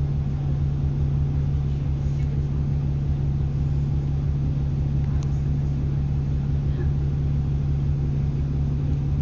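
Bus engine running with a steady low drone, heard from inside the passenger cabin of a double-decker bus.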